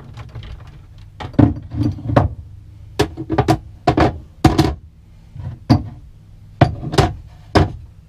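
Lead fishing weights set down one after another on top of a plastic box, making about a dozen sharp knocks and clunks, some coming in quick pairs.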